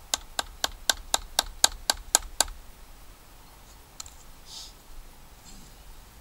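Wooden baton knocking on a Condor Bushlore knife, driving its blade point-first into a log chopping block: about ten sharp strikes, roughly four a second, stopping about two and a half seconds in.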